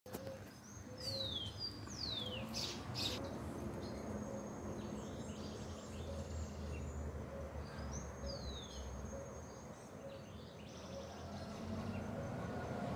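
Birds calling in the treetops: a few clear whistles that slide down in pitch, with softer short notes repeating in between, over a steady low background hum.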